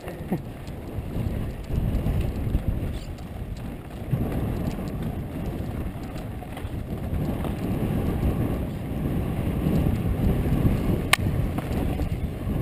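Mountain bike riding over a rough dirt singletrack: a continuous rumble of tyres and rattling bike with wind buffeting the microphone, and one sharp click about eleven seconds in.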